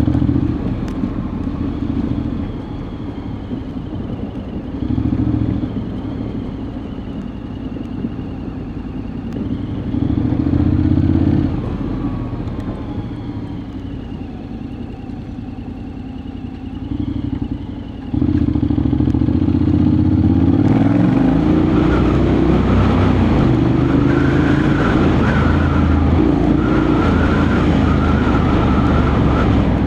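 Honda X-ADV 750 parallel-twin engine ridden at low speed, its note rising and falling as the throttle is opened and closed. About two-thirds of the way in it picks up and runs louder and steadier.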